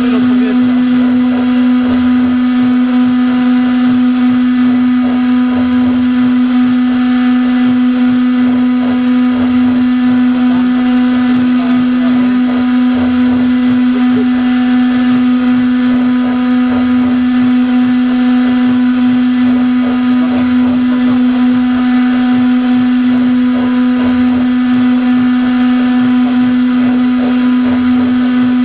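Havok Forma 2 CNC router's spindle running at a constant speed while milling foam, a steady even-pitched whine that does not change.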